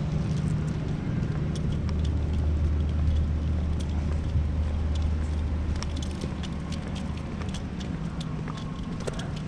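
A portable engine generator running with a steady low hum that weakens a little after the middle, with scattered light clicks over it.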